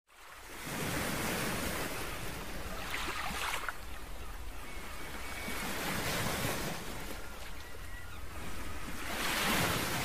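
Ocean surf washing in, with wind on the microphone, the noise swelling and fading every few seconds.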